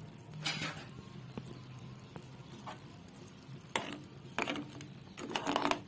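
Boiling sugar syrup with mango pulp in a steel pan, stirred with a steel spoon: a faint steady sizzle with several short scrapes of the spoon against the pan, most of them in the last two seconds.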